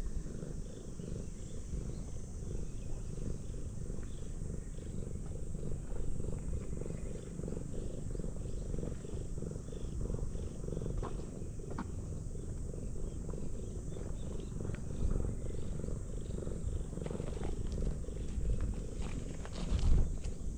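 Ginger tabby cat purring steadily while being stroked, a low, fast-pulsing rumble close to the microphone. A few sharp crunches of gravel under paws near the end.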